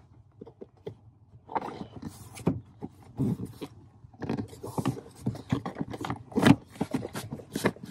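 A hard plastic interior trim panel being pushed and worked into place by hand against a truck's lower dash and door frame: irregular scraping and rubbing with scattered knocks and clicks, the loudest about six and a half seconds in.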